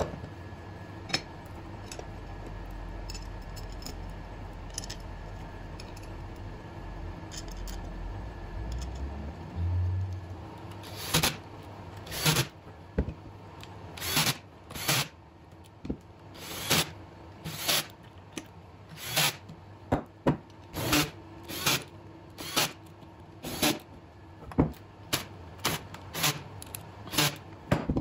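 Metal parts and screws clicking as aluminium plates are fitted together by hand. From about eleven seconds in, a Ryobi cordless drill with a socket extension drives cap screws into the aluminium assembly in short repeated bursts, a little more than one a second, heard sped up.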